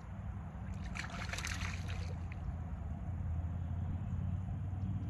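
Steady low engine hum from a distant motor, with a brief whirring rattle about a second in from a baitcaster reel being cranked.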